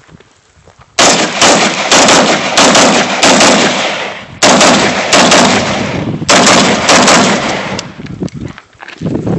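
Rapid string of semi-automatic gunshots, about fifteen rounds fired two to three a second, each shot ringing on, starting about a second in and stopping about two seconds before the end.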